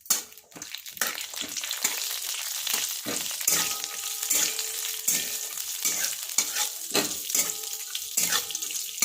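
Cashews, almonds and raisins sizzling as they roast in hot ghee in a kadhai over a low flame, with a spoon stirring and scraping against the pan in repeated strokes. The sizzle swells about a second in and holds steady.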